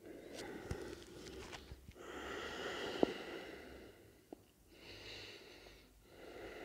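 A man breathing slowly and audibly through the nose while holding a yoga stretch: about three long, soft breaths that swell and fade. A sharp click about three seconds in, and a smaller one a little later.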